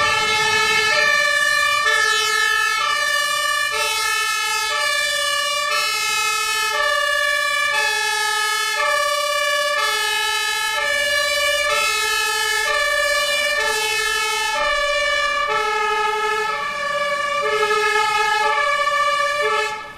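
German fire engine's two-tone siren (Martinshorn) sounding continuously on an emergency run, alternating evenly between a low and a high note about once a second. It cuts off right at the end.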